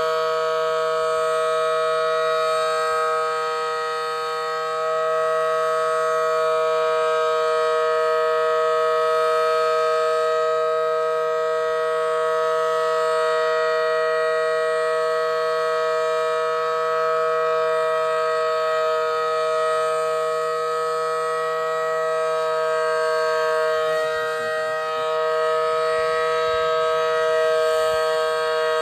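Federal Signal Model 5BT outdoor warning siren sounding a steady alert signal: a loud two-note chord held at constant pitch, dipping slightly in loudness twice.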